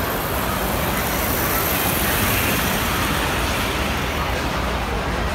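Standard gauge tinplate toy trains running on three-rail metal track: a steady rumble of wheels on the rails.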